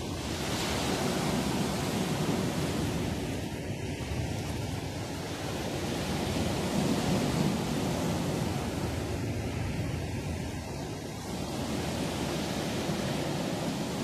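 Sea surf: waves breaking and washing up a pebble beach as a continuous rushing noise that swells about a second in and again around seven seconds in, easing between.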